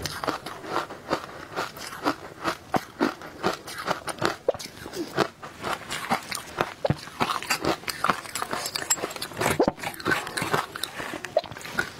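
Close-miked crunching and chewing of mouthfuls of powdery ice coated in matcha powder, a quick irregular run of crisp crunches, several a second.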